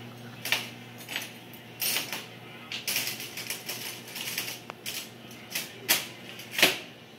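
Dental instruments clicking and tapping at the orthodontist's chair during bracket bonding: irregular light metallic clicks, the loudest two near the end, over a low steady hum that stops near the end.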